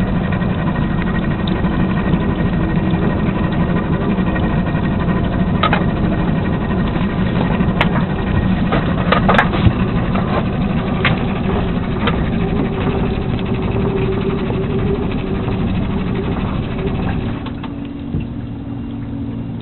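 Boat motor running steadily at idle, with a hum and a steady engine note. Several sharp knocks come in the middle. The engine note drops and goes quieter near the end.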